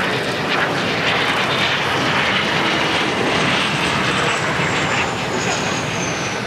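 Kawasaki T-4 jet trainer's twin turbofan engines during landing and touchdown: a steady loud jet rush with a high whine that slowly falls in pitch from about four seconds in.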